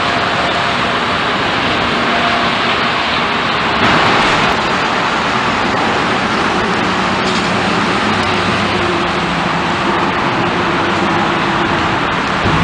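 Steady road traffic: cars and coaches passing on a multi-lane road, a continuous rush of tyre and engine noise, with one vehicle going by louder about four seconds in.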